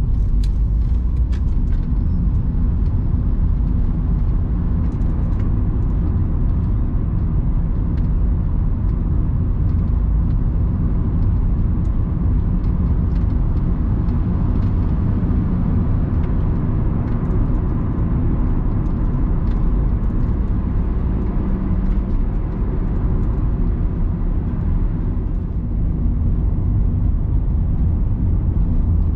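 Cabin sound of a 2001 Honda Capa 1.5 with a CVT automatic on the move: a steady hum from the small four-cylinder engine mixed with road and tyre rumble.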